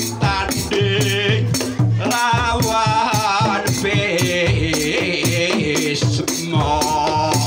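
Javanese gamelan playing a tayub gending: a female sinden sings wavering, ornamented phrases through a PA over a steady pulse of drum and metallophone strokes.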